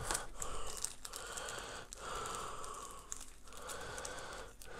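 Small plastic bag of screws crinkling and rustling as it is handled and pulled open, in three stretches with short breaks.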